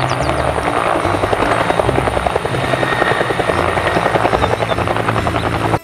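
A medium utility helicopter with a two-bladed main rotor hovering low, its rotor blades giving a fast, even chop over the turbine noise.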